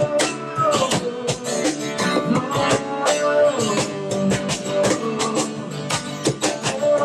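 Acoustic guitar strummed over a steady cajón beat: a live acoustic duo playing a worship song.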